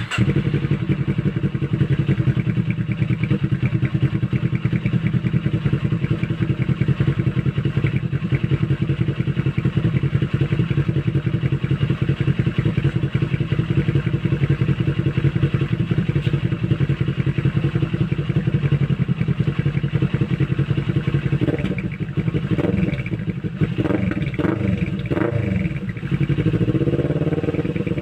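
Kawasaki Ninja 400's parallel-twin engine idling steadily through an Akrapovic exhaust, an even run of firing pulses. In the last several seconds the note dips and shifts in pitch a few times, with some clicks.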